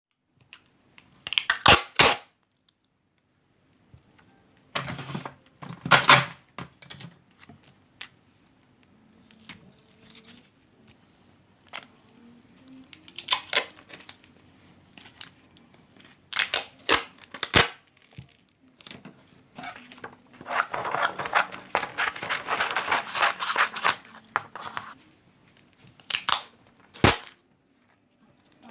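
Paper-craft handling sounds of tape, scissors, pencil and paper: short crisp rustling and snipping bursts with scattered clicks and taps, and a longer stretch of dense scratchy rustling about 20 seconds in.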